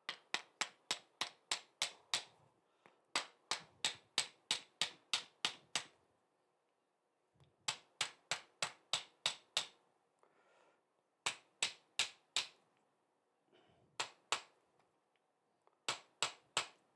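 Light hammer taps on a glued wooden toy, driving a wooden axle peg home. The taps come quickly, about three to four a second, in six short runs with pauses between.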